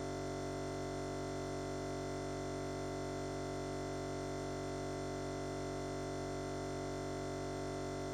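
A steady, unchanging electronic drone made of many held tones, with no rhythm or variation at all.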